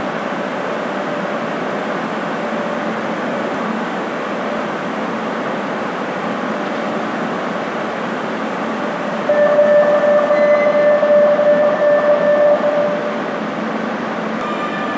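Steady running noise of a Lima Metro Series 9000 train standing at the platform. About nine seconds in, a steady tone sounds for roughly three seconds, then stops.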